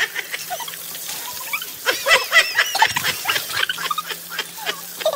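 Women laughing, with high-pitched squeals coming in quick succession.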